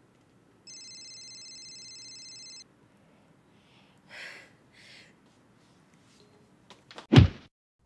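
A steady high ringing tone for about two seconds, then two soft breathy sighs and a short, loud thump near the end.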